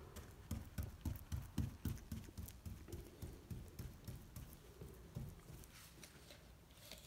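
Soft, quick taps of a brush dabbing resin along a crack in a fiberglass boat hull, about three a second, faint and fading out near the end.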